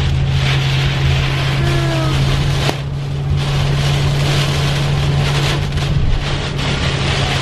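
Car cabin while driving in strong weather: a steady low hum under an even rushing noise of wind and rain.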